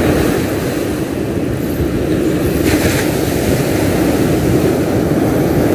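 Steady low rumble of wind buffeting the microphone, mixed with the wash of ocean surf on the beach.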